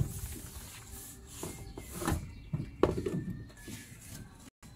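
A paintbrush rubbing wet epoxy primer onto a galvanized corrugated steel roof sheet: a few short swishes of brush on metal about two and three seconds in.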